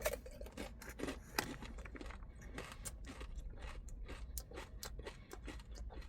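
Biting into and chewing a crispy fried chicken wing close to the microphone: a run of irregular small crunches and clicks from the fried coating.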